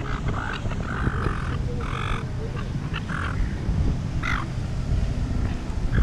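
A flock of silver gulls calling: a run of short squawks in quick succession, thinning out after about four seconds. A low wind rumble on the microphone lies underneath.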